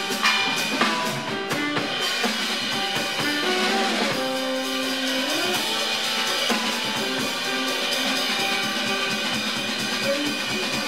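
Live jazz quartet playing: tenor saxophone, piano, upright bass and drum kit, with strong drum strikes right at the start.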